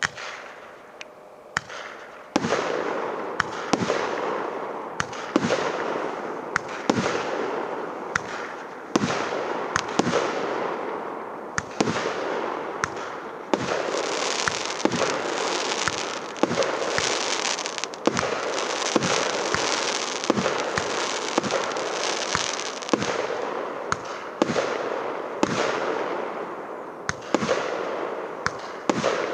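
A 49-shot, 1.25-inch PKU124 'Linkor' fireworks cake firing: sharp launch bangs about once a second over a continuous crackle of bursting effects. The crackle thickens into a dense hiss around the middle and thins again near the end.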